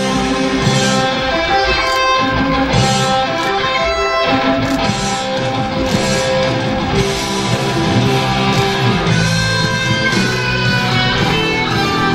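Music led by guitar, steady and loud, with no singing heard.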